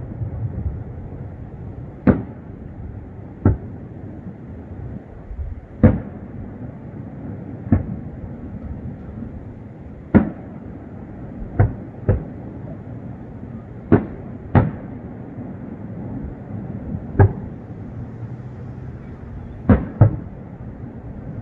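Aerial fireworks going off, about a dozen sharp bangs at uneven intervals of one to two and a half seconds, some in quick pairs, over a steady low background noise.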